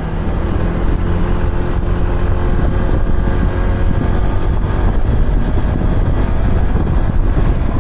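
Honda ADV160 scooter's single-cylinder engine running at a steady pace while riding, with wind rumbling on the camera microphone. The engine hum is clearest in the first few seconds, then the wind rumble covers more of it.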